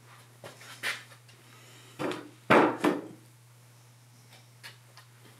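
Hard knocks and clunks from handling a Yanmar 3TN75RJ diesel's cylinder head just lifted off the block: a few light knocks, then a burst of louder clunks about two to three seconds in.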